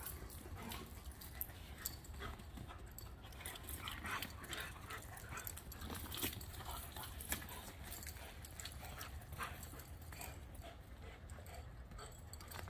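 Two dogs romping together: scattered short scuffles, huffs and little dog vocal noises throughout, over a steady low rumble.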